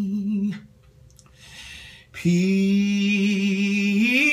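Solo male voice singing gospel a cappella: a long held note ends about half a second in, and after a short pause a new steady held note starts about two seconds in, bending upward into a run near the end.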